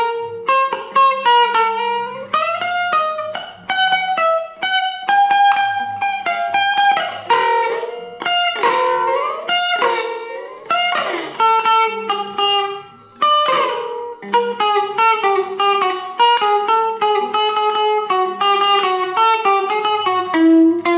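Stratocaster-style electric guitar playing a single-note melody: separately picked notes, several of them bent so the pitch glides up and falls back.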